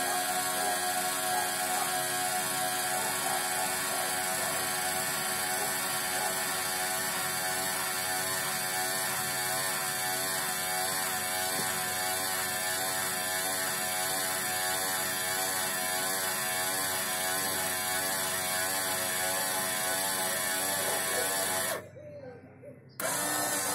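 Geared electric motor of an aftermarket seat-lift frame under a car's front seat, running steadily with a whine of several level tones as it raises the seat. It drops out for about a second near the end, then runs again.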